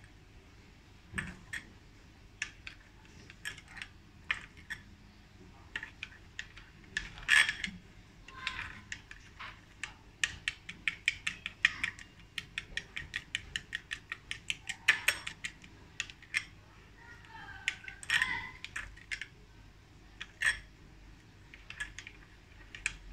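Metal spoon stirring a thick, grainy coffee, sugar and honey scrub in a glass bowl, clinking and scraping against the glass in quick irregular clicks that come fastest around the middle.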